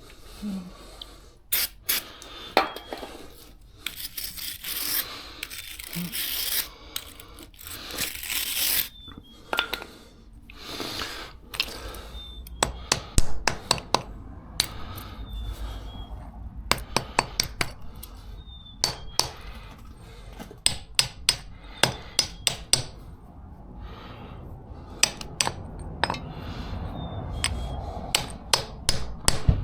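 Hand tools on car parts: scraping and rubbing on metal, then a run of sharp metallic taps and clinks, several a second through the second half.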